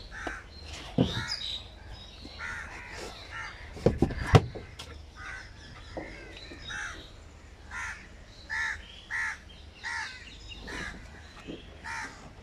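Crows cawing over and over, short separate calls spread through the whole stretch. A sharp knock comes about a second in, and a quick cluster of louder knocks, the loudest sound here, comes around four seconds in.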